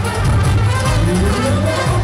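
Loud live Macedonian folk dance music: a trumpet plays the melody over an amplified band with a steady bass beat.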